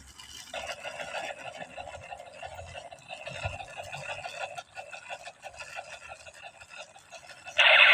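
A rapid buzzing rattle, like a small motor, that sets in about half a second in and fades after about four seconds, then a much louder, harsh electronic-sounding burst starting near the end.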